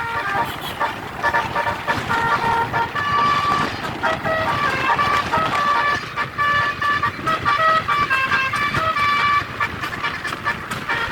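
Basuri telolet bus horn playing a tune, its notes changing pitch in quick steps, over a steady noisy background.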